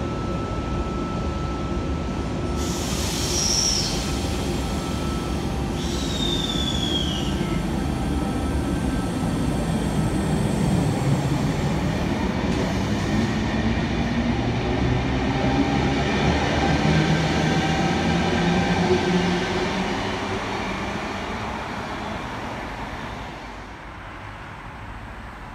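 Double-deck electric suburban train pulling out of a station: traction motors whining and rising in pitch as it gathers speed, wheels rolling, with brief high squeals a few seconds in. The sound fades away near the end as the last car leaves.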